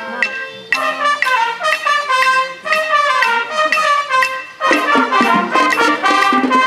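High school marching band playing: trumpets and other brass come in about a second in, and lower brass join for a louder full-band passage about two-thirds of the way through.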